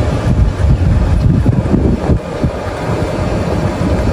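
Strong wind buffeting the microphone: a loud, gusty low rumble that surges and eases unevenly.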